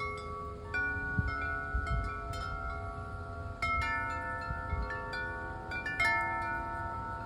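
Wind chimes ringing in the wind. Several notes are struck together in clusters, about a second in, near four seconds and at six seconds, and each note rings on and overlaps the others.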